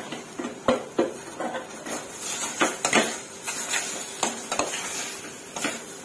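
Metal spoon stirring sliced chicken breast in a stainless steel saucepan, with irregular clinks and scrapes against the pot's side, about eight in a few seconds.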